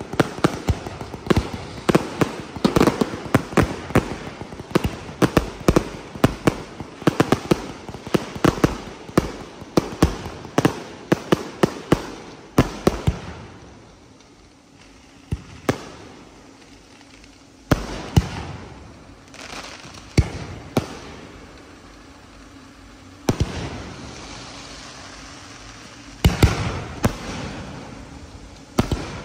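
Aerial fireworks going off. A rapid barrage of bangs and crackles runs for about the first thirteen seconds, then thins out to single bangs a few seconds apart, with quieter stretches between.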